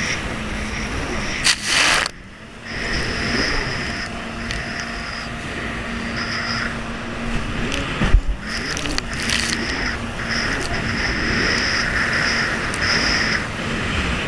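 Jet ski running at speed, its engine humming steadily under the rush of wind and spray on the hull. A loud splash a little before two seconds in, a brief drop in the noise, and a hard slap of the hull on the water about eight seconds in.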